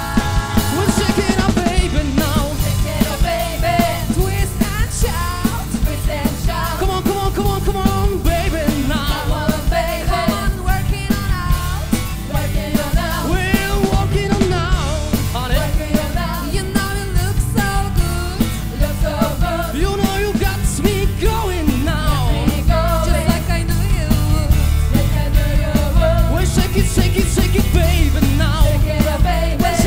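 A live rock band playing a song: drum kit, bass and electric guitar under lead singing, loud and steady throughout.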